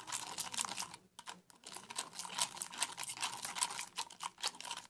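A spoon stirring powdered laundry soap into water, clicking and scraping rapidly and unevenly against the container, with a short pause about a second in.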